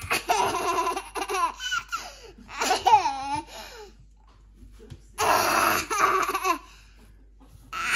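Toddler laughing and squealing in several bursts, the pitch swooping up and down.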